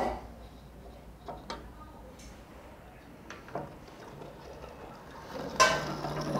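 A few light clicks and taps of a steel rule and square being set down and shifted against a wooden insert blank on a metal saw table. About five and a half seconds in there is a louder metallic knock and scrape.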